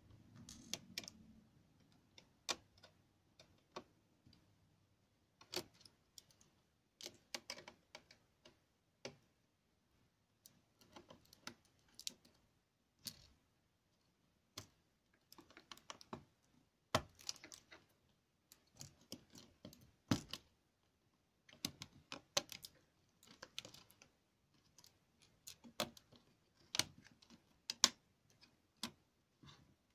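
Irregular small clicks and taps of an HP Stream 11 laptop's circuit board and plastic case being handled, as the motherboard is worked loose from the chassis. They come singly and in short clusters, with brief quiet gaps between them.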